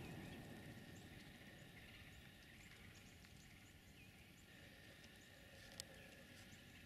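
Near silence: faint outdoor ambience. A louder noise dies away in the first second, scattered faint high chirps follow, and there is one sharp click near the end.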